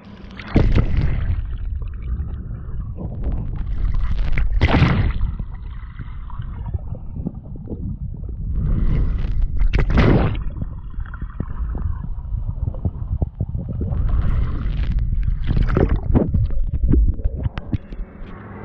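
Swimming-pool water heard through a half-submerged action camera: a muffled, steady low rumble with gurgling, broken by louder sloshing rushes of water every few seconds.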